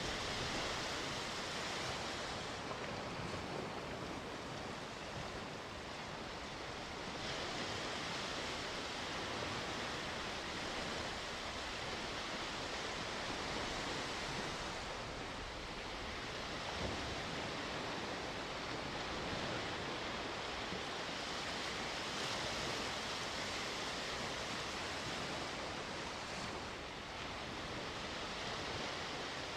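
Sea waves breaking and washing on the shore: a steady surf hiss that swells and eases every several seconds.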